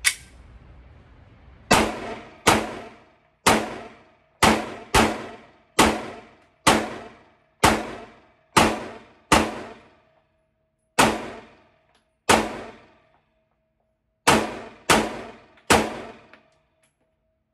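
FN 509 Midsize 9mm pistol firing about fifteen single shots, at roughly one a second with two pauses of about two seconds. Each shot is sharp and rings off briefly in an indoor range.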